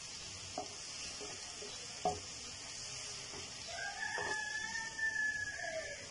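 Diced chicken, onion and tomato sizzling in a frying pan, with a wooden spatula knocking against the pan twice. Near the end a drawn-out call that rises and then falls lasts about two seconds over the sizzle.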